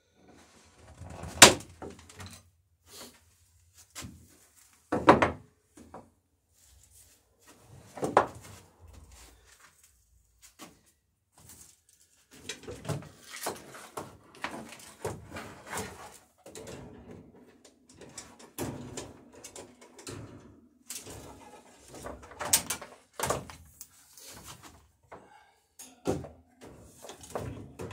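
Hammer blows on a rivet in the dory's wooden planking: a few sharp, ringing strikes spaced several seconds apart, with lighter knocks and the clatter of tools being handled between them, busier in the second half.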